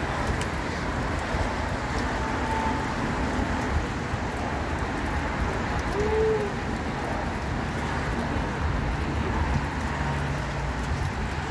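Steady rain falling, an even hiss and patter that runs on without a break.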